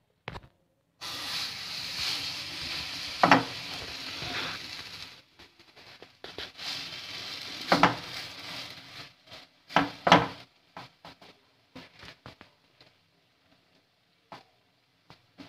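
Thick palm-pancake batter sizzling in hot oil in a frying pan. The sizzle starts suddenly about a second in, with a few sharp knocks as the batter is pressed and spread by hand, and it dies down to faint crackles and clicks in the second half.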